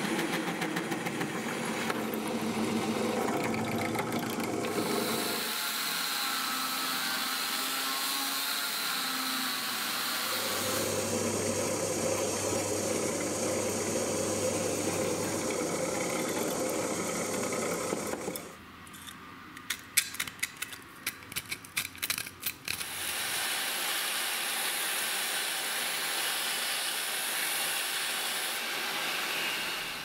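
Power drill boring through steel plate, first with an annular cutter and then with a twist bit: a steady motor hum and cutting grind that changes abruptly at a few points. About two-thirds of the way in the drilling drops away and there is a run of sharp clicks, then the steady running sound comes back.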